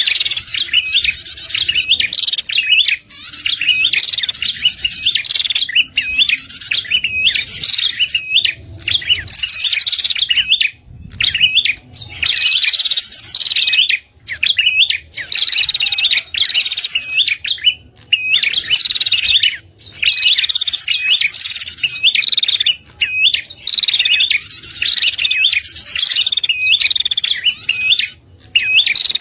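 Prenjak kepala merah song played as a bird-trapping lure call: fast, high, repeated chirps broken into phrases every second or two, with brief pauses between them.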